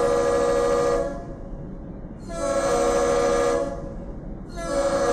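A loud, many-toned horn blowing in long blasts. One blast cuts off about a second in, then two more follow, each a bit over a second long.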